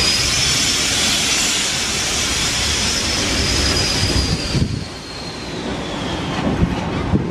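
Small steam tank locomotive rolling slowly past at close range, with a loud steam hiss that cuts off suddenly about four and a half seconds in. Its running gear rumbles underneath, with a few knocks near the end.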